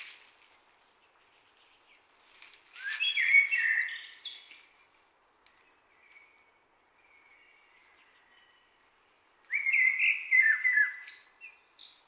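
A songbird singing: two loud phrases of quick, stepped and falling notes, one about two and a half seconds in and one near the end, with softer notes between them. A brief rushing noise comes at the start and again with the first phrase.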